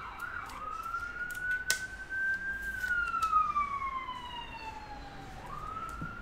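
Emergency-vehicle siren wailing: a single tone rising slowly, falling over about three seconds, and rising again near the end. Scattered light clicks of a trading card and its plastic holder being handled, one sharper about a second and a half in.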